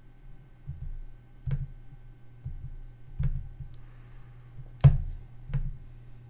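Computer mouse clicks, four sharp ones with the loudest about three-quarters of the way through, each with a soft low thud from the desk, over a faint steady electrical hum.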